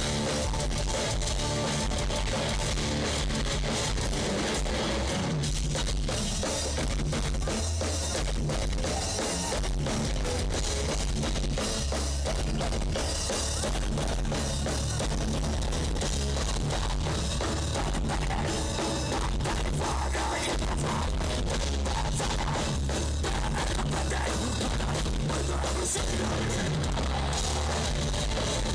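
Folk metal band playing live through a festival PA: drum kit and distorted electric guitars, loud and continuous, heard from within the crowd.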